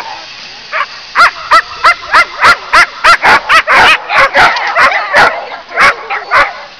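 A dog barking and yelping excitedly in a fast run of short, high-pitched barks, about three a second, starting about a second in.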